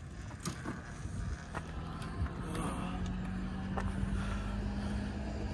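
Custom mini bike's engine idling: a low, steady running sound with a few light clicks, and a steady hum that settles in about halfway through.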